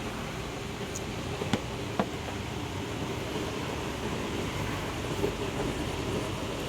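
Steady low background rumble with two light clicks about a second and a half and two seconds in.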